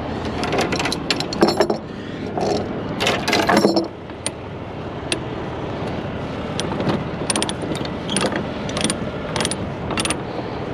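Metallic clicking and clattering: several sharp clicks in the first few seconds, then a steady run of short clicks about every half second from about six seconds in, over a steady background rumble.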